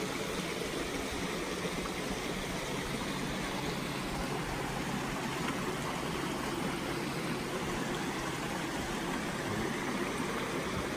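Steady rush of water from a rock waterfall splashing into a koi pond.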